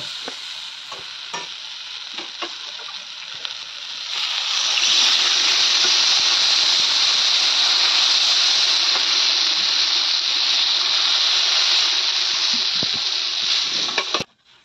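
Spice paste (masala) frying in oil in a kadai, with a spatula tapping and scraping against the pan. About four seconds in, water is poured in from a steel bowl and the hot oil and masala break into a loud, steady sizzle that cuts off suddenly near the end.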